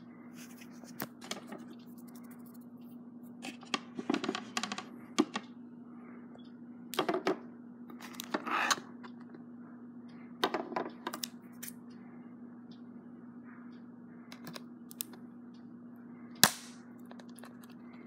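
Stiff clear plastic blister packaging being handled, giving bursts of crackling rustles and clicks, with one sharp snap near the end, the loudest sound.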